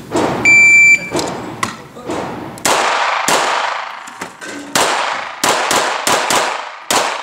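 Electronic shot-timer start beep, one steady high tone about half a second long, then a CZ75 SP-01 Shadow 9x19mm pistol firing a rapid string of about eight loud shots, several in quick pairs, each ringing off the range walls.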